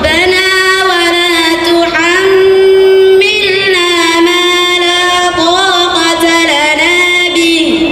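A girl's voice chanting a melodic Qur'an recitation (tilawah), holding long notes with ornamented turns and brief pauses for breath.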